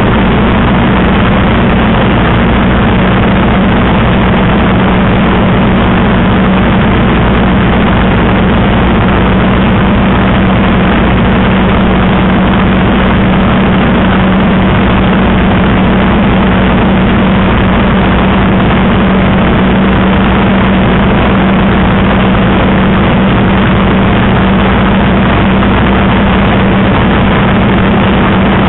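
Spitfire's Rolls-Royce Merlin V12 engine running steadily in flight, heard from inside the cockpit: a constant deep hum under a loud rushing hiss of propeller and slipstream.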